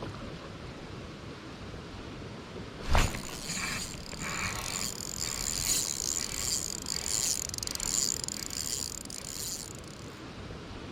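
A sharp knock, then a spinning reel, a Shimano 18 Stella, being cranked to retrieve line, a fine high whirring with rapid ticking for about seven seconds before it stops.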